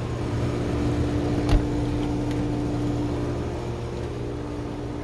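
Steady mechanical hum with a steady low tone, and a single click about a second and a half in.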